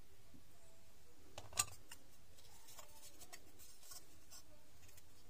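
Faint handling noise of fingers twisting thin wire leads onto a lithium battery cell and a circuit board: light scratches and small clicks, with one sharper click about a second and a half in.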